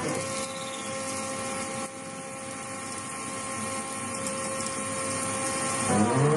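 Stepper motor whining steadily at a constant step rate, several tones held at once. Just before the end the pitches sweep as the motor changes speed.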